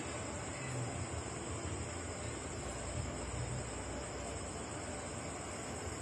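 LG Direct Drive front-load washing machine running mid-cycle, its drum turning with a low, uneven rumble. A steady high-pitched hiss sits over it.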